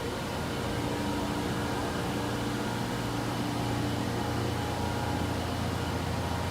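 Steady low machine hum with a few held tones from a large Froriep CNC vertical boring mill.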